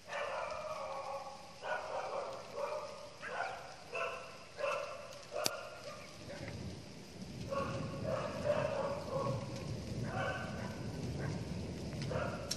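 An animal calling over and over, about one short pitched call a second, with a gap in the calls near the middle. A low, rough rumble comes in from about halfway and runs under the later calls.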